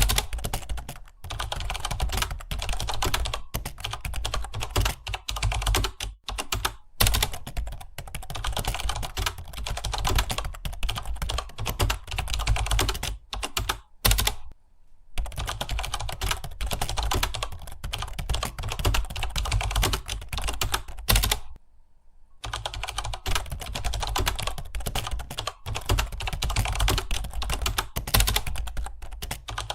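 Fast, continuous typing on a computer keyboard: a dense stream of key clicks, broken by two brief pauses, about 14 and 22 seconds in.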